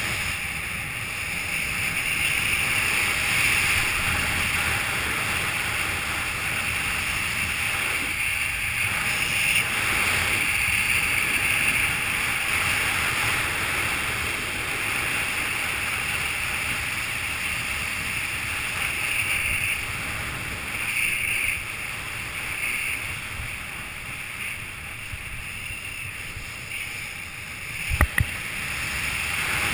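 Wind rushing over an action camera's microphone during a fast speedriding descent, with skis sliding over snow; a single sharp knock near the end.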